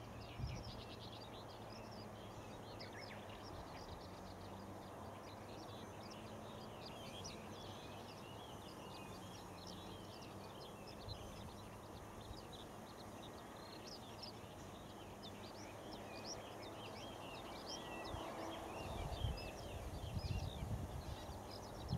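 Many small birds chirping in the background in a dense, continuous chatter, over a faint steady low hum. Some low rumbling comes in near the end.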